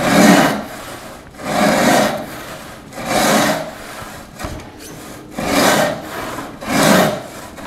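Roubo-style frame saw resawing a walnut board by hand: slow, even rasping strokes, about one every second and a half. The cut is nearly through, with the kerfs from the two faces about to meet.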